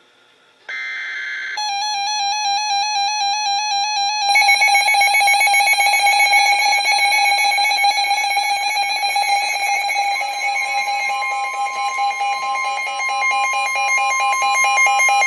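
Emergency Alert System header data bursts, then the loud, harsh attention tone that announces a new severe thunderstorm warning. A single steady tone joins about ten seconds in.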